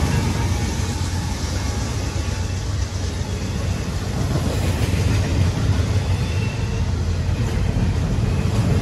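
CSX intermodal freight train's double-stack container well cars rolling past, a steady rumble of steel wheels on the rails.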